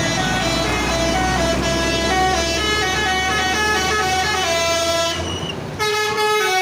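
A bus's telolet horn, a multi-tone air horn, playing a quick stepping tune of several notes, over the low rumble of the bus's engine. Near the end the engine rumble drops away and the horn tune goes on.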